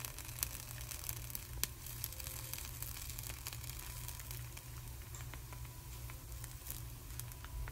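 Coconut rice batter sizzling in a hot khanom krok pan, a soft hiss with scattered sharp crackles, over a steady low hum.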